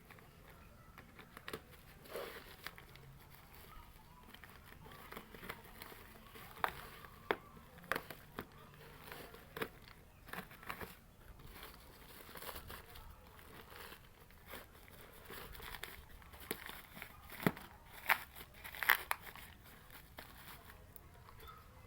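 Irregular small clicks, knocks and crinkling from handling parts and tools, with a few sharper knocks in two clusters, about a third of the way in and near the end.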